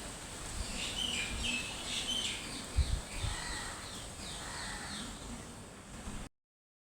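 Bird-like chirping and twittering calls, a sound effect for the small feathered dinosaur Epidexipteryx, over a steady background hiss, with a couple of low thumps about three seconds in. The sound cuts off abruptly to dead silence near the end.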